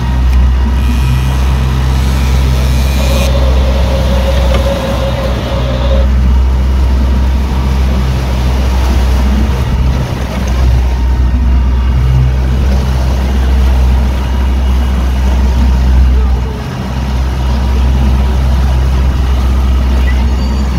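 Motorboat running at speed: a steady low rumble of its engines mixed with wind and rushing water from the wake.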